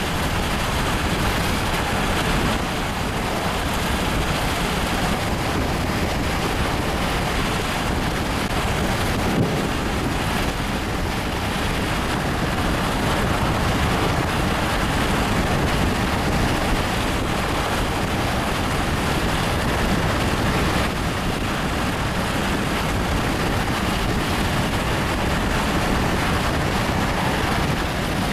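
Steady rushing wind and road noise from a moving vehicle, with no distinct events.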